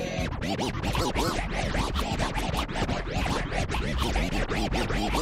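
DJ turntable scratching: a record is worked back and forth in quick strokes, several a second, with low bass underneath.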